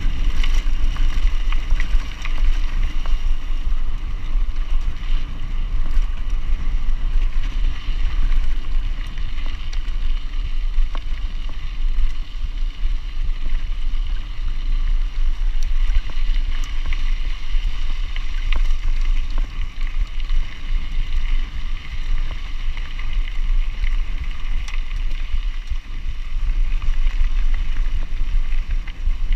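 Wind buffeting the camera's microphone over the rumble of mountain-bike tyres rolling on a loose dirt track, with small clicks and rattles from the bike throughout.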